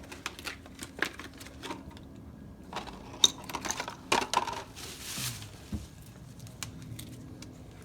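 Hands handling a new Fram spin-on oil filter and its packaging: scattered light clicks, taps and clinks, with a brief rustle about five seconds in.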